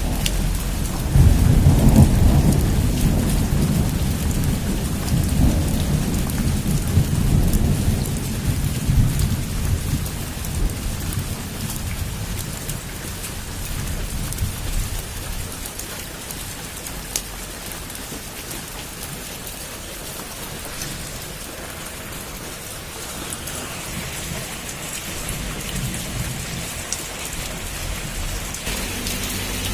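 Heavy rain falling on a roof as a steady hiss, with a long roll of thunder. The thunder starts about a second in, is loudest over the next couple of seconds and fades away over about ten seconds; a fainter low rumble comes back near the end.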